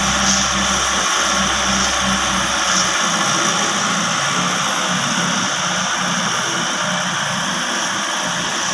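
John Deere 160 excavator's diesel engine running steadily, with a deep low rumble that drops away about three seconds in.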